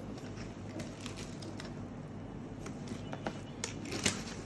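Faint scattered clicks and light handling noise over a low steady hum.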